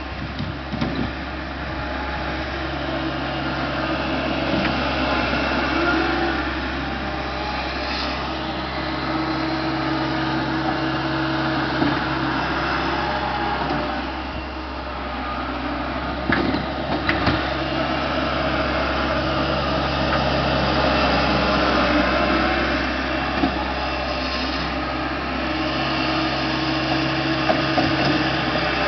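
Engine of snow-clearing machinery working a drift. It hums steadily and revs up for a few seconds at a time, about four times, with scattered clanks and knocks.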